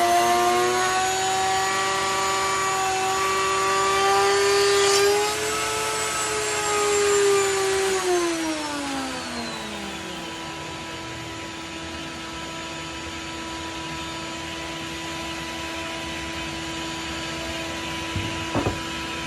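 Electric power tool motor running at speed with a steady whine, then switched off about eight seconds in and winding down in falling pitch over a few seconds. A steady machine hum carries on underneath, and a couple of sharp clicks come near the end.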